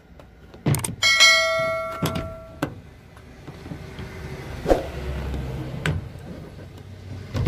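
A click, then a bell-chime sound effect that rings for about a second and a half. Later come two short knocks as the cab's sun visor is handled.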